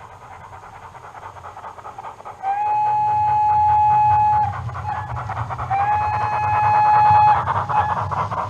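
A sound-fitted OO gauge model locomotive's DCC decoder plays steady rhythmic chuffing over the rumble of the train on the track. About two and a half seconds in it gives two long single-pitch whistle blasts, each about two seconds long and starting with a short upward slide, with a short gap between them.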